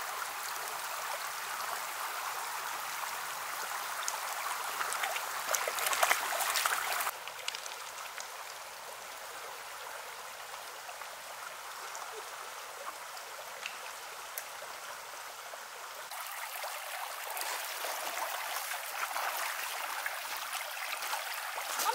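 Shallow stream running over stones, a steady rush of water. About five to seven seconds in there is louder splashing from a dog wading, then the sound drops abruptly.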